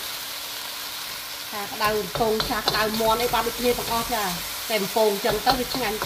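Stir-fried eel and vegetables sizzling in a hot wok while a wooden spatula stirs and scrapes them around the pan. From about a second and a half in, the spatula strokes bring quick squeaky scrapes several times a second over the steady sizzle.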